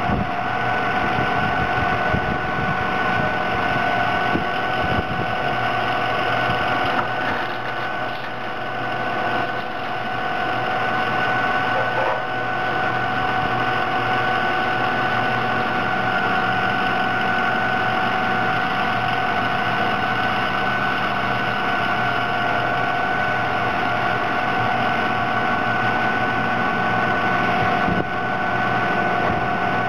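Large diesel engine idling steadily, with a steady high-pitched whine over the rumble.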